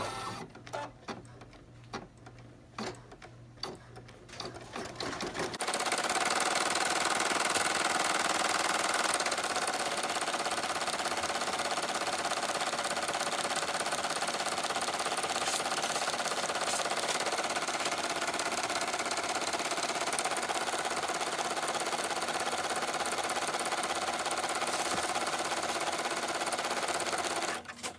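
Embroidery machine stitching out the final step, which sews the front and back together. After about five seconds of scattered clicks, it runs steadily at speed and stops shortly before the end.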